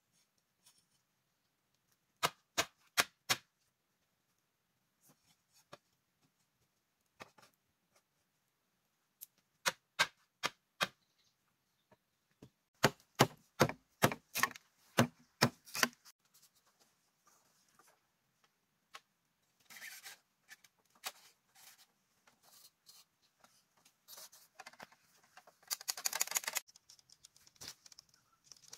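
Hand-tool strikes on bamboo: sharp knocks in quick runs of several, the longest and loudest run about halfway through. After them comes a stretch of scraping, rustling noise.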